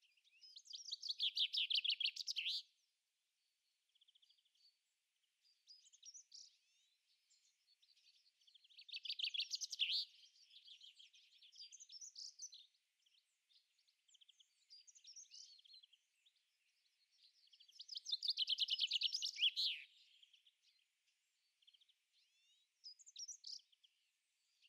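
Songbirds singing: a loud trilled song phrase of about two seconds comes three times, roughly eight seconds apart, with quieter chirps in between.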